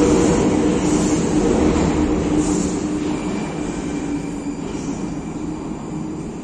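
Prague metro train running away down the tunnel, its rumble and motor hum slowly fading as it recedes. A faint wheel squeal comes in about halfway through.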